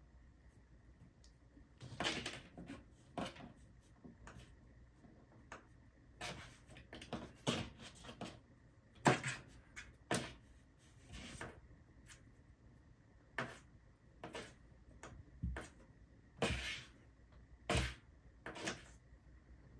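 A kitten's paws batting and scratching at the side of a cardboard box: irregular taps, knocks and short scrapes of claws on cardboard, some in quick flurries.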